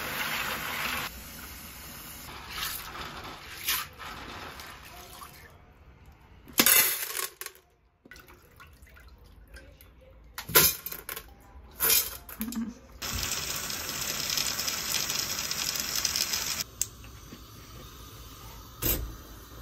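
Kitchen tap running into a steel sink over dried white beans, with several sharp clinks and knocks of the beans and a steel pot being handled. A steady rush of running noise comes in for a few seconds past the middle.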